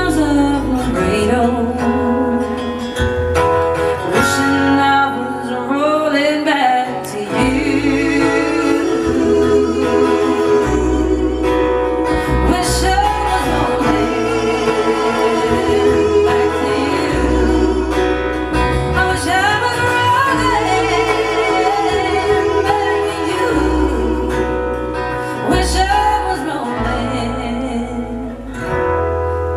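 Live acoustic country-folk performance: a woman and men singing together over strummed acoustic guitars, with deep notes from an acoustic bass guitar.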